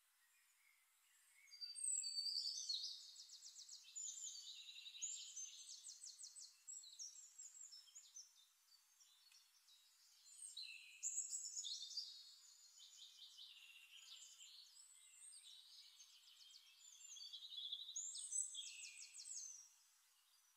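A songbird singing in several phrases of rapid high trills and whistled glides, with short pauses between phrases.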